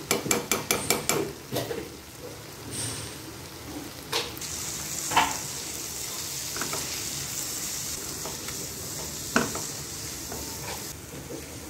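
Onion and tomato masala sizzling in oil in a kadai as chili powder is fried into it, stirred with a silicone spatula: a quick run of scraping strokes in the first second or so, then a steady sizzle with a few knocks of the spatula against the pan.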